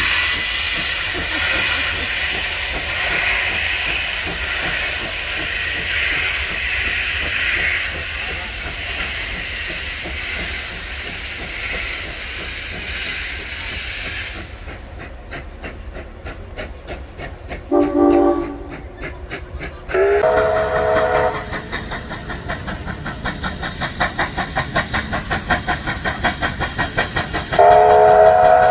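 Passenger carriages rolling past with a steady hissing rush. After a cut, steam locomotive 3801, a streamlined 4-6-2, works a train: its exhaust beats quicken to about three a second, and its steam whistle sounds three chord blasts of about a second each, the last near the end.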